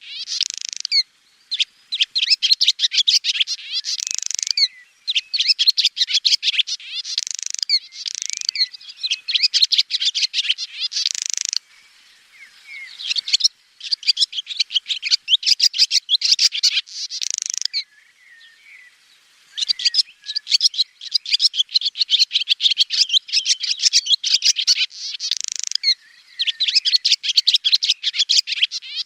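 Swallow twittering: bouts of rapid chattering notes, each a second or few long, with brief pauses between them and two longer, quieter breaks partway through.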